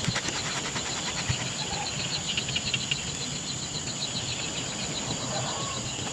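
Insects trilling steadily: a thin high continuous buzz with a rapidly pulsed trill just below it.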